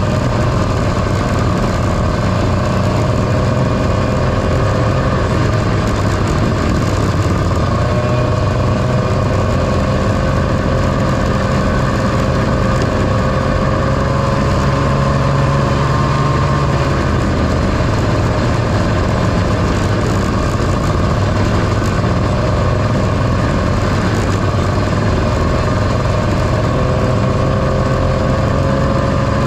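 1978 John Deere Liquifire snowmobile's two-stroke engine running steadily at cruising speed, its pitch dipping slightly and rising again about seven seconds in.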